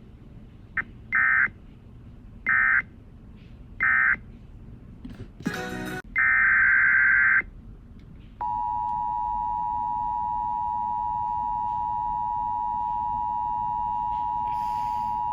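Emergency Alert System signalling: three short, harsh digital data bursts, then a longer data burst, then the steady two-tone attention signal starting about eight seconds in.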